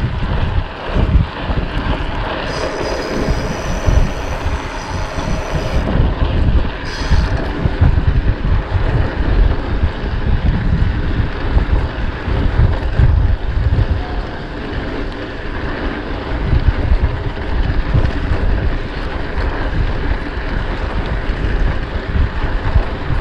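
Wind buffeting the microphone during a bicycle ride, as a loud, gusty low rumble over a steady rush of riding noise. A high buzz comes in for a few seconds about 2.5 s in and again briefly about 7 s in.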